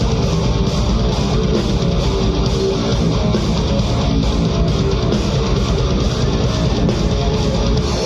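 Live rock band playing an instrumental passage with distorted electric guitar strumming, bass and drums keeping a fast steady beat, no vocals.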